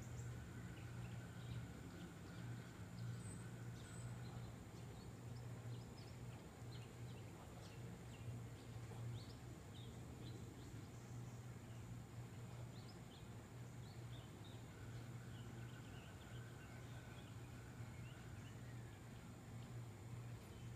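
Faint outdoor ambience: many short, high bird chirps scattered over a steady low hum.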